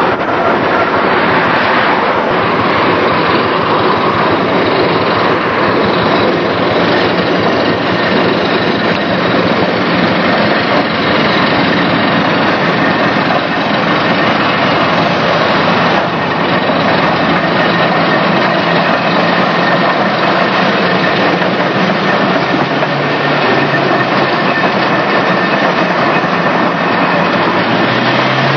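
Loud, steady machine noise with no clear beat or break.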